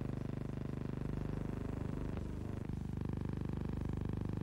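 Steady low electrical hum with a buzzing edge: the background noise of a silent film's transfer, not sound from the scene. Two faint clicks come a little past two seconds in.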